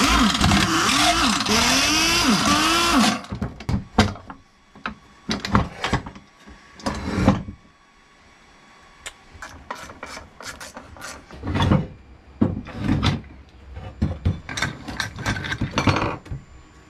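Pneumatic wrench spinning bolts out of a jet ski pump housing for about three seconds, its pitch rising and falling. Then scattered clanks and knocks of metal parts being handled and set down on the workbench.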